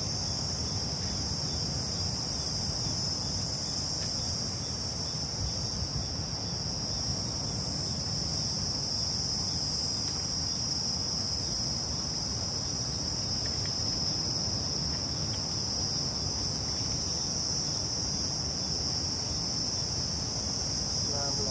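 Steady high-pitched drone of insects over a low rumble.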